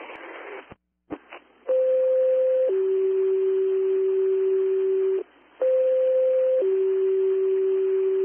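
Fire dispatch two-tone sequential alert heard over a scanner radio: a higher tone for about a second, then a lower tone held for about two and a half seconds, sent twice over steady radio hiss. It is the page that alerts a company to a new dispatch.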